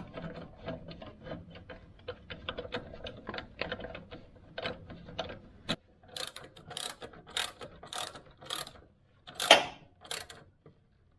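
Hand ratchet clicking quickly and evenly, about six clicks a second, as a bolt is wound in, then slower, louder strokes about two a second, the loudest near the end.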